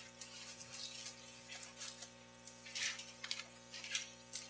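Paper rustling as pages of a printed audit report are turned, in short irregular scratches over a faint steady electrical hum.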